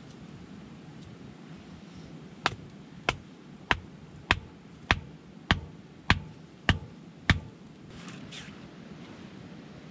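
A wooden stake being hammered into the ground with a hand-held stone: nine sharp knocks, evenly spaced a little over half a second apart, followed by a faint rustle.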